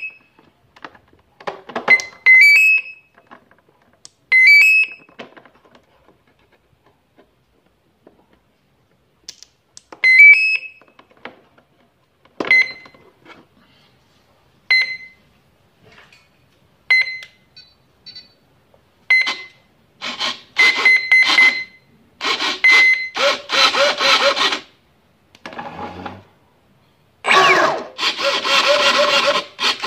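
An RC boat's electronic speed controller beeps as the 4-cell battery is connected: a rising three-note chime several times, then single beeps about every two seconds. From about two-thirds of the way in, the brushless motor spins the propeller in a run of short whirring bursts, its pitch rising and falling.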